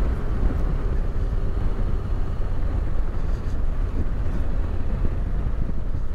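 Yamaha Ténéré 700's parallel-twin engine running steadily while riding along, mixed with wind rumble on the microphone.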